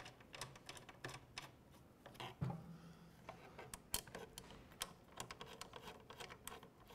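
Faint, irregular clicks and ticks of a hand screwdriver turning screws into metal parts in a 3D printer's aluminium frame to fasten its handle.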